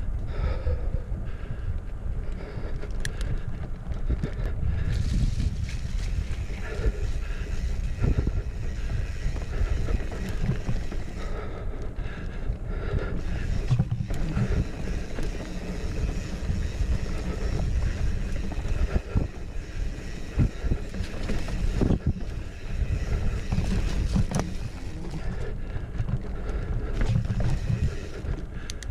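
Wind buffeting the microphone of a chest-mounted GoPro while a mountain bike is ridden over a dirt trail, a steady low rumble broken by frequent sharp knocks and rattles from the bike over bumps.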